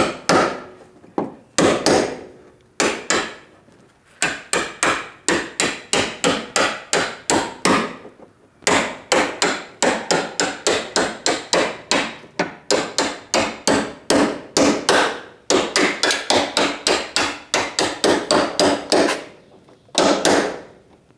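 Ball-peen hammer striking a hand chisel driven along a car body's spot-welded sheet-metal seam, the spot welds already drilled out, to split the quarter panel away. The strikes come several a second in runs of a few seconds, with short pauses between runs.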